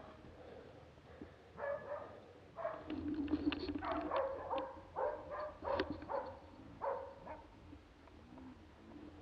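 Hunting dog barking, a string of short barks at uneven intervals.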